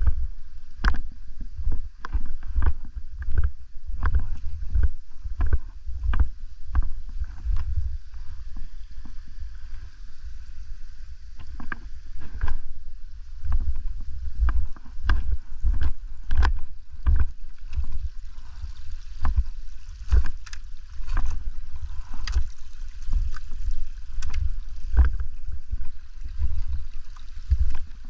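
Footsteps tramping through snow in a steady walking rhythm, each step a dull thump, with the clicks of trekking poles planted alongside.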